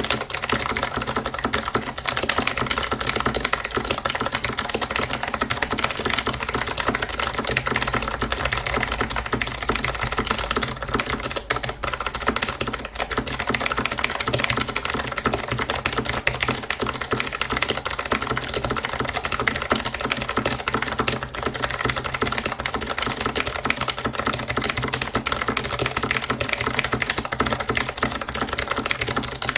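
Fast continuous typing on a HAVIT low-profile mechanical keyboard with clicky Kailh low-profile Blue switches: a dense, unbroken stream of sharp key clicks.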